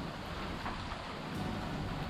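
Steady rushing noise of wind over the microphone and water, without a distinct pitch.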